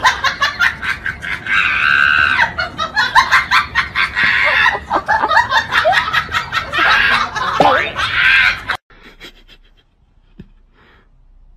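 People laughing hard, in loud choppy shrieks, breaking off suddenly about nine seconds in.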